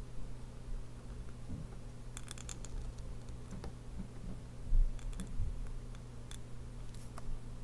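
Pointed steel dip-pen nib in an oblique holder scratching and ticking on paper as letters are written, in small clusters of sharp clicks. A low steady hum underlies it, and a dull thump comes a little past halfway.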